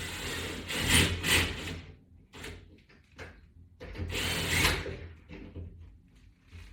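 A screw being tightened by hand into a wall-mounted latch bar bracket: several short scraping, grinding bursts of the tool turning, with a longer one about four seconds in.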